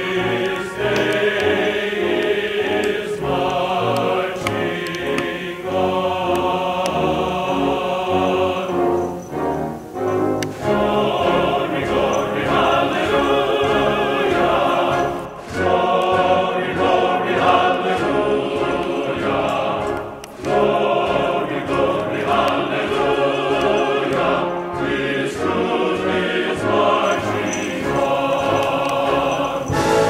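Background music: a choir singing with orchestral accompaniment.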